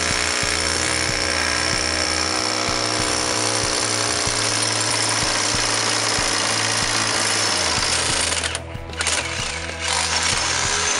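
Rotary hammer drilling a long masonry bit into brick, running steadily, stopping for about a second near the end, then starting again.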